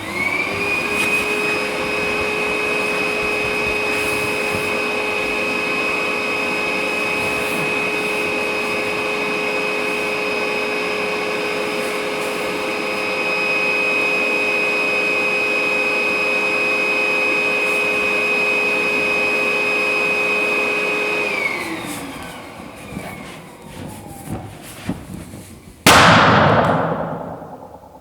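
Electric balloon pump running steadily with a high whine, inflating a balloon, then switching off and winding down about 21 seconds in. A loud sudden bang with a fading tail follows near the end.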